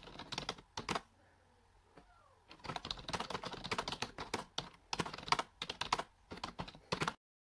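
Typing on a computer keyboard: quick runs of key clicks, with a short lull about a second in, stopping abruptly near the end.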